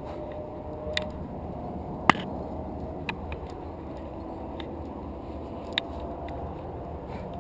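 A few sharp clicks and knocks of climbing gear and hands against granite as a climber moves up a slab, the loudest about two seconds in, over a steady low rush.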